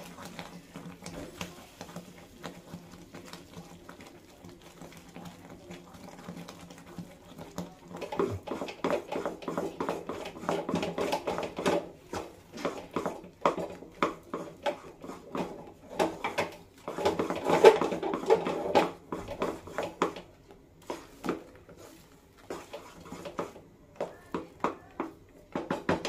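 A spatula stirs and scrapes thickening atta halwa around a non-stick frying pan once the sugar syrup has been mixed in. The strokes are quiet at first, become rapid and busy about eight seconds in, peak after about seventeen seconds, then ease into separate strokes.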